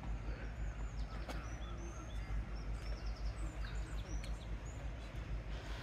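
Small birds chirping and twittering in short high whistled notes, some falling in pitch, over a steady low rumble.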